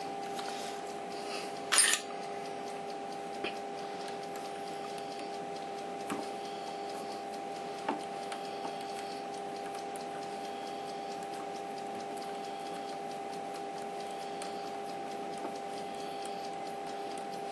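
A few light metallic clinks as socket-cap screws and the tool turret are handled on the lathe's cross slide, the loudest about two seconds in, over a steady hum of several tones.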